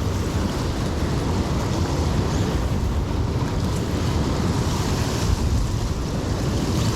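Steady rush of flowing river water, with wind rumbling on the microphone.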